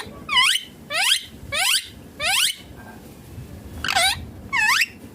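Indian ringneck parakeet giving six short, shrill calls, four in quick succession, then a pause of about a second and a half before two more.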